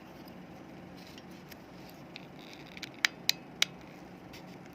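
Three sharp clicks about three seconds in, over a faint steady low hum: small plastic parts of a disassembled air-conditioner remote control being handled.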